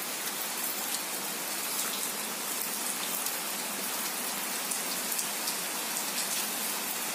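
A steady hiss with faint scattered ticks.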